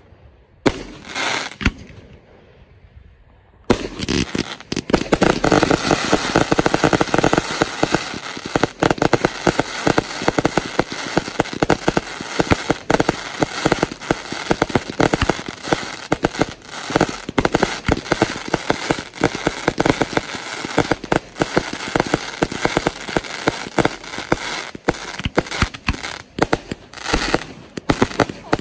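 Fireworks going off: a couple of single bangs, then from about four seconds in a dense, continuous barrage of rapid bangs and crackling.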